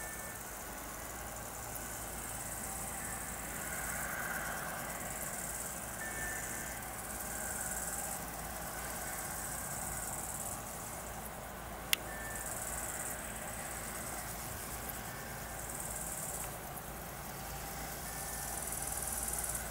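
Insects chirping in the grass in pulses that come and go, over the low, steady drone of a DR1A diesel multiple unit's engine as the train approaches from a distance. A single sharp click about twelve seconds in.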